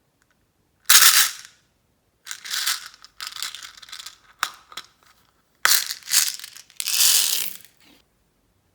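Glossy slime being squished and stretched by hand: short sticky crackling squelches, about five bursts with silent gaps between and a couple of sharp clicks in the middle.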